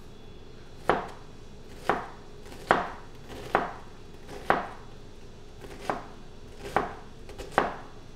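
Chef's knife chopping an onion on a cutting board: slow separate strokes, each a sharp knock of the blade on the board, about one a second.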